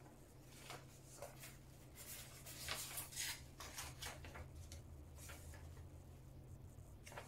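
Paper rustling as printed instruction sheets and a manual are handled and unfolded, in short faint rustles that are loudest about three seconds in, over a low steady hum.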